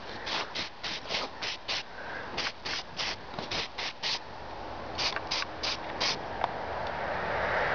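Aerosol spray-paint can hissing in quick short bursts, about four a second, in three runs with brief pauses between them.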